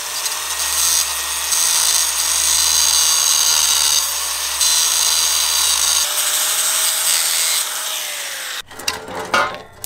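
Power tool running continuously on the seized exhaust bolts, a steady hiss with a faint wavering tone. It cuts off about a second before the end, followed by a few short sharp knocks.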